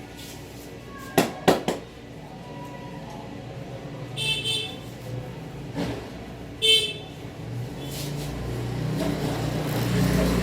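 Three sharp smacks in quick succession about a second in, then two short high horn toots some seconds apart, and a vehicle's engine growing louder near the end.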